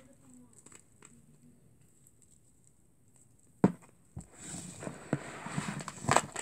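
Plastic slime containers being handled: a sharp knock about three and a half seconds in, then rustling and light clicks as they are moved about.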